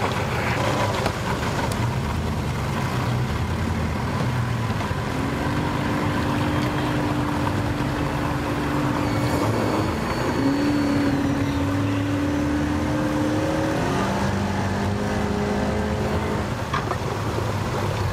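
Mercury 80 hp outboard motor running under throttle, pushing an aluminium jon boat onto its trailer. Its hum steps up a little about ten seconds in and drops lower at about fourteen seconds.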